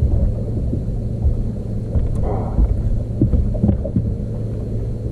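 Wind rumbling on the camera microphone, with a short, brighter sound a little over two seconds in.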